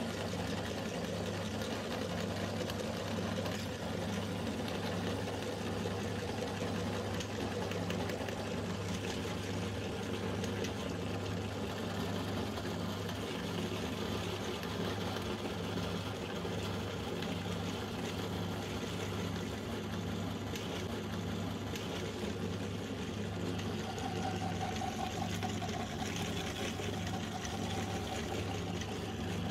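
Motor-driven meat grinder running with a steady mechanical hum, its large belt pulley turning as the auger minces banana pieces.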